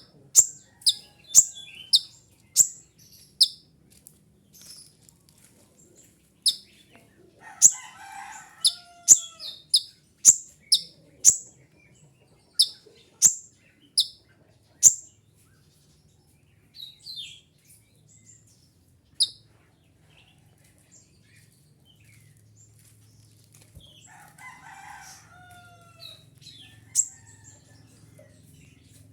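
Kolibri ninja sunbird calling: short, sharp, high chirps, each falling in pitch, in runs of about two a second, broken by pauses and thinning out after the middle.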